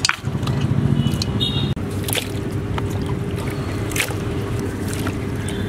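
Raw mutton pieces squelching and water splashing as they are washed and squeezed by hand, with wet meat being handled in a pot. A steady low hum runs underneath.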